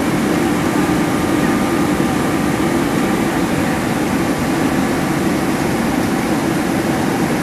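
Steady cabin noise inside a Boeing 767-300ER climbing out: jet engines and airflow as a constant rushing hum with a faint whine above it.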